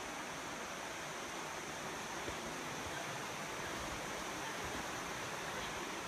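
Steady rushing of flowing water, an even hiss with no breaks or distinct events.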